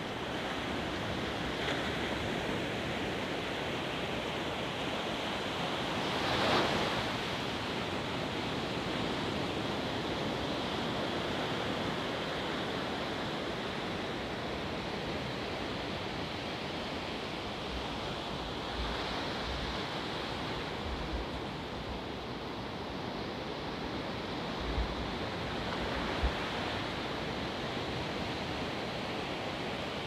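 Ocean surf: a steady rush of waves breaking on the shore, with one louder wave crash about six seconds in.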